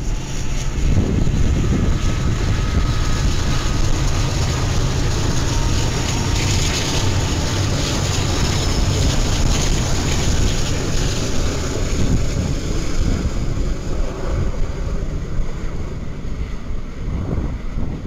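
Union Pacific freight train passing: diesel locomotives running as they go by, then a string of freight cars rolling over the rails, a loud steady rumble.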